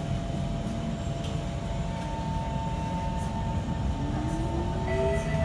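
Kawasaki C151 electric multiple unit pulling away from a station, heard from inside the car: a steady low rumble, a steady whine that comes in about two seconds in, and a rising whine from the traction motors near the end as the train gathers speed.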